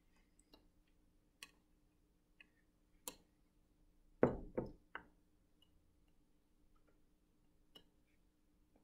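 Metal straw clinking against a glass cup as a thick smoothie is stirred: a few scattered sharp ticks, with a louder, fuller knock about four seconds in.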